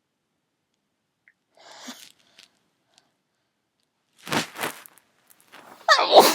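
A person sneezing, the nose tickled with a clothes tag to bring the sneezes on: a faint breath about two seconds in, two quick sharp bursts a little after four seconds, then the loudest, voiced sneeze near the end.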